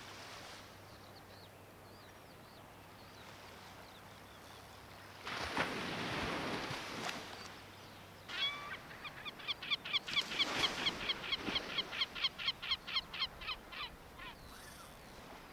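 A bird calling in a fast run of short, repeated harsh notes, about four to five a second, lasting some five seconds past the middle. Before that comes a rush of noise lasting a couple of seconds.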